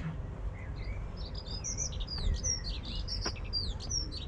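Songbirds singing: a fast, busy run of high chirps and whistles starting about a second in, over a steady low rumble.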